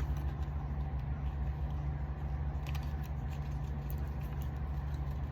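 Small cards being handled and sorted, with faint rustles and a few light clicks, over a steady low rumble.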